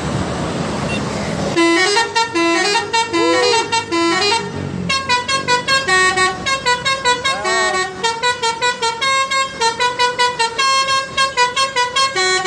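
A coach's multi-tone musical 'telolet' horn playing a fast tune of short, stepped notes, with a few sliding notes, starting about a second and a half in over the sound of the running bus.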